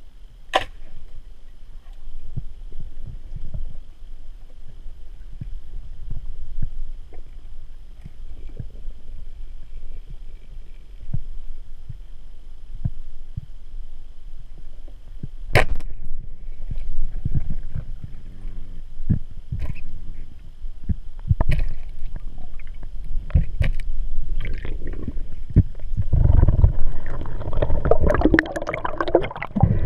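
Muffled underwater audio from a GoPro in its housing: a low rumble of water movement with scattered sharp clicks, the loudest about half a second in and about halfway through. Near the end a louder stretch of churning, gurgling water noise.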